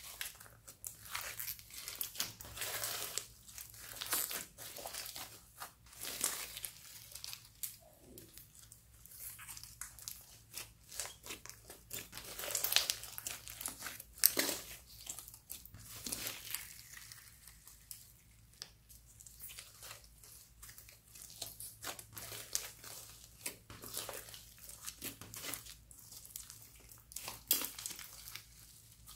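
Slime mixed with foam beads being kneaded, squeezed and stretched by hand, giving off an irregular stream of crackling, clicking squishes.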